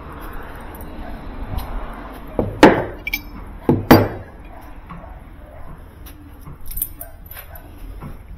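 Two sharp metal clanks about a second apart as a washer spin-tub spanner wrench and tools are handled on a wooden workbench, followed by a few lighter clinks.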